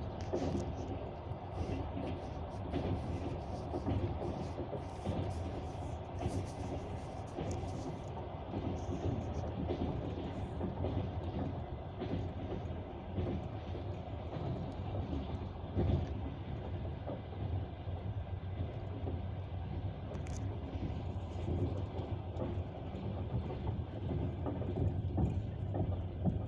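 Passenger train running, heard from inside the carriage: a steady rumble with the clatter of the wheels over the rails, and scattered sharp clicks.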